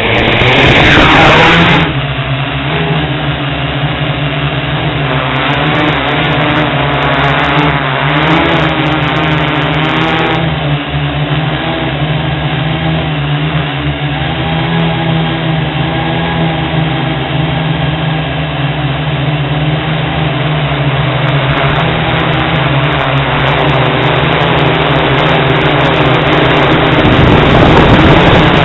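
Hexacopter's six electric motors and propellers spinning up sharply at the start and lifting off, then a steady buzzing hum in flight, heard close up from the camera mounted on the craft.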